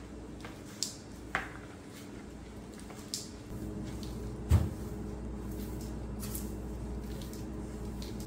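Soft broom sweeping a tiled floor, with a few short swishes and taps and one louder knock about halfway through, over a steady low hum.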